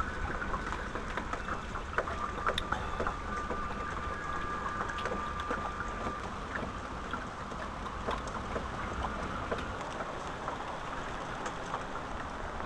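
Steady rain, with scattered drops and drips ticking on surfaces, over a low rumble.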